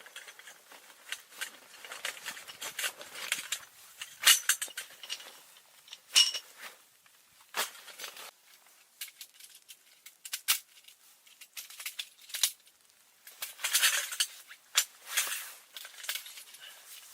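Handling noises: a scattered run of clicks, knocks and rustles, with a brief metallic clink that rings for a moment about six seconds in.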